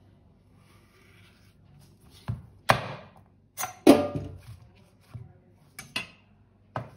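Kitchen utensils knocking and clinking during food preparation: several sharp knocks, the two loudest about three and four seconds in with a short ring after them.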